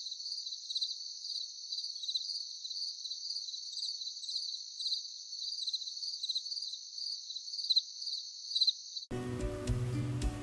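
Crickets chirring: a continuous high trill pulsing in a regular rhythm, which stops abruptly about nine seconds in as strummed acoustic guitar music begins.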